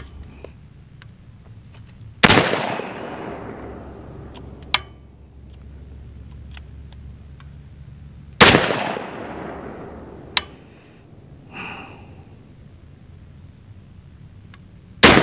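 AR-15 rifle fired three times as slow, aimed shots about six seconds apart while zeroing its iron sights, each a sharp crack followed by an echoing tail; the third comes near the end. Two shorter, fainter sharp clicks fall between the shots.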